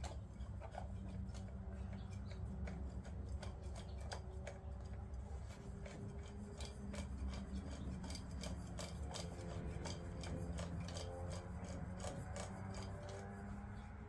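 Hands working at a small engine's oil filter mount, threading a new short oil filter on: soft rubbing and scraping with many small clicks, over a steady low hum.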